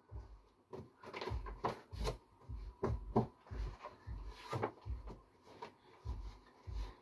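Irregular soft knocks, thuds and rustles of fabric and packed items being pressed and shifted into a cardboard box during packing.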